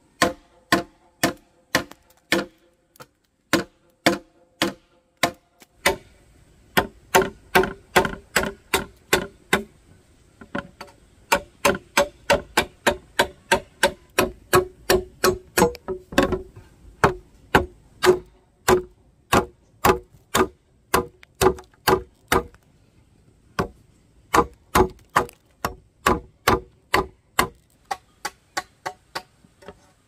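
A heavy chopping knife hacks into green bamboo tubes in steady blows, about two a second, with a few short pauses. Each blow ends in a brief pitched ring from the bamboo.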